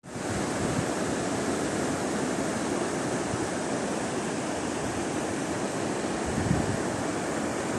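Steady rush of sea surf on a sandy shore, with wind on the microphone and a few low thumps near the end.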